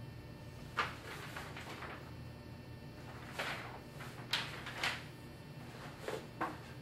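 A handful of short scraping and knocking handling noises, about six spread over several seconds, against a faint room hum.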